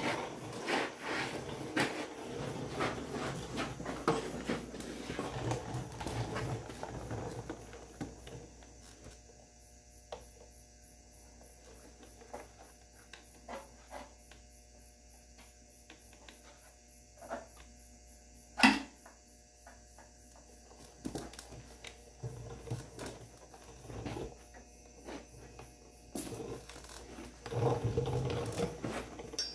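Scattered clicks, clinks and knocks of hand tools on the oil pan bolts of an engine, busy at first, sparse in the middle with one sharp knock about two-thirds through, and busier again near the end.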